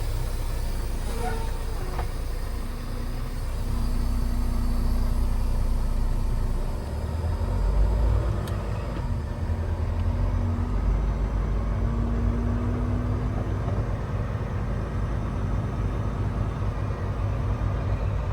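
Semi-truck engine running as the rig pulls away and drives: a steady low rumble with a faint hum, swelling about seven seconds in and again a few seconds later.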